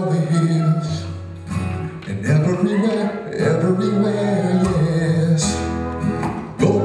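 A man singing with acoustic guitar accompaniment, played live.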